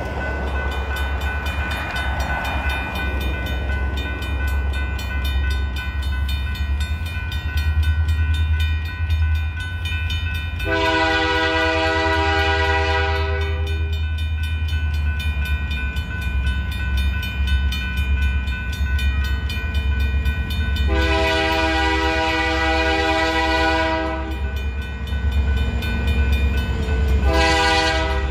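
A grade-crossing bell rings steadily over a low rumble while the approaching Portland & Western diesel locomotive sounds its chime horn: two long blasts, then a short one near the end. This is the opening of the long-long-short-long grade-crossing signal.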